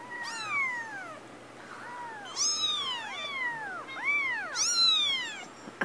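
Young kittens mewing: a string of high cries that rise and fall in pitch, some overlapping one another, the loudest about halfway through and near the end.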